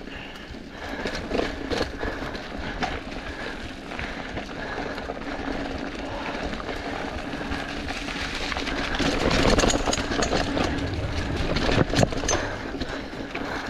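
Mountain bike riding over a dirt trail covered in dry leaves: tyres crunching through the leaves, with the bike rattling over bumps and getting louder from about eight seconds in. Near the end comes a sharp knock as the front wheel reaches rocks.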